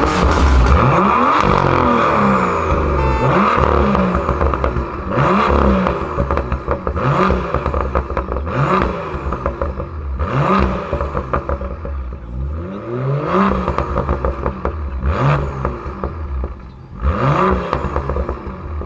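BMW M2 F87's turbocharged straight-six, breathing through a catless Armytrix valvetronic exhaust, free-revved while parked in a series of short throttle blips about one every two seconds, each rising and falling in pitch, with crackles as the throttle closes.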